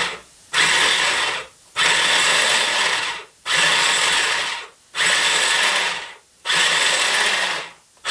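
Small electric mini food chopper pulsed about five times, each burst of motor whir and spinning blade lasting about a second with short pauses between, chopping green peppers into small pieces.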